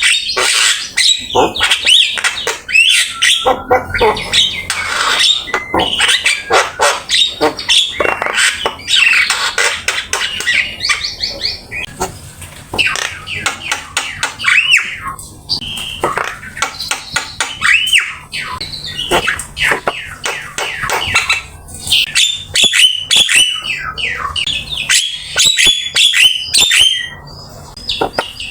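Javan myna singing non-stop: a rapid, varied stream of harsh squawks, chatter and whistled notes, mixed with mimicked calls.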